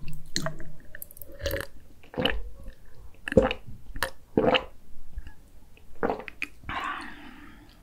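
Close-miked gulping as a dark drink is swallowed straight from a glass pitcher: a series of separate gulps, roughly one a second.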